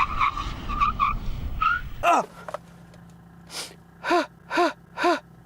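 A car braking hard with its tyres skidding and squealing for about two seconds, cutting off abruptly. Then come short, sharp gasping sounds from a person's voice, about half a second apart.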